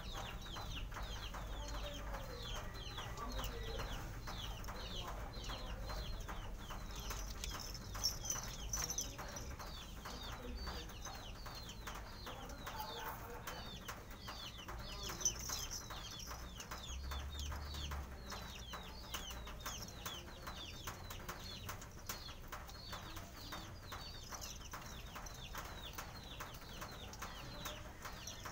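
Small birds chirping continuously: a rapid series of short, high, downward-sliding chirps, several a second. Two sharp knocks stand out, about a quarter of the way through and again near the middle.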